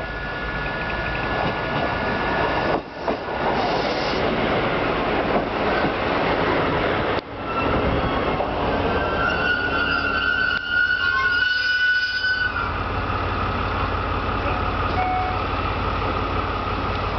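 JR Kyushu KiHa 220 single-car diesel railcar pulling in: a rolling rumble of engine and wheels as it passes close by, then a high squeal for a few seconds as it slows to a stop, then a steady low diesel idle at a standstill.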